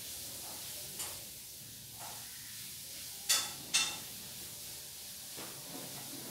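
Steady hiss with two sharp clicks about half a second apart near the middle and a fainter click about a second in.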